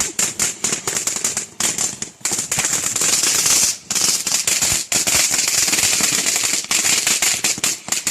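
Consumer firework crackling: a loud, dense, rapid string of small cracks and pops with a hissing crackle, broken by a few short gaps.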